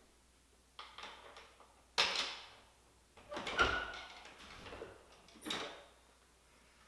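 Frosted-glass panelled door being worked and opened: a handful of sharp clicks and clatters from the handle and latch, the sharpest about two seconds in, with a short squeak partway through as the door starts to open.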